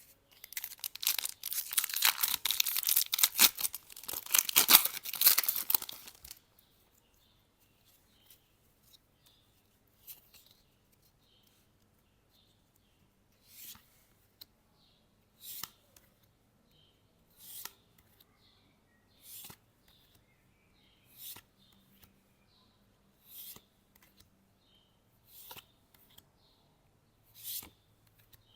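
Foil wrapper of a Pokémon card booster pack being torn open, a loud crackly tearing for about six seconds. Then cards are slid through the hand one at a time, a soft swish roughly every two seconds.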